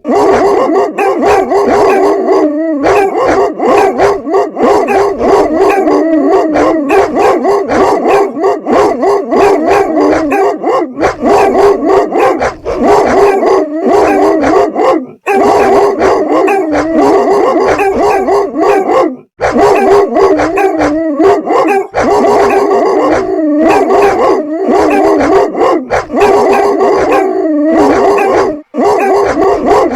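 Dogs barking almost nonstop, barks coming rapidly and overlapping, mixed with longer drawn-out cries, with a few very brief breaks.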